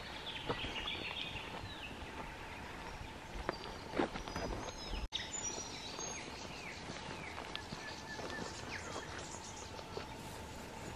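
Bush birds chirping and whistling, many short calls sliding downward, with a few crunches and ticks of footsteps in grass and scrub. A faint steady tone runs underneath, and the sound breaks off abruptly about halfway through.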